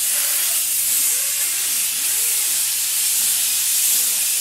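Steady hiss of a patina torch flame running while bronze is heated for coloring, with faint voices underneath.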